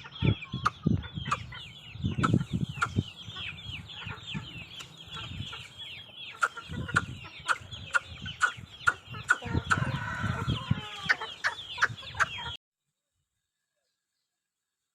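Parrot-beak Aseel chickens clucking, with a constant stream of short, high, falling peeps and some low thuds. The sound cuts off abruptly near the end, leaving dead silence.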